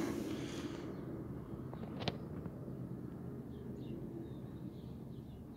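Outdoor background with a steady low rumble, a single sharp click about two seconds in, and a few faint bird chirps in the second half.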